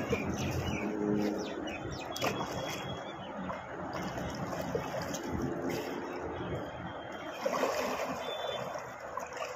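River water splashing and sloshing around a man bathing and swimming, over the river's steady rush, with a few faint bird chirps.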